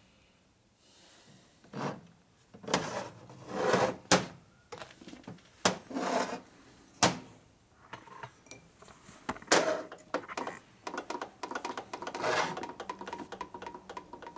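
Steel transmission gears and splined shaft being handled and test-fitted on a metal workbench: a series of separate knocks and metal clinks, then a fast run of light clicks over the last few seconds as a gear is worked on the shaft.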